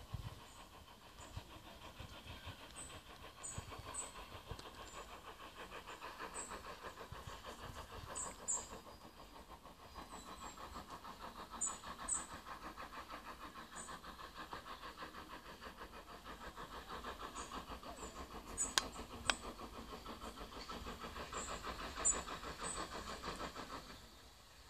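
Steam locomotive working toward the listener from a distance: a faint, steady, rapid beat of exhaust.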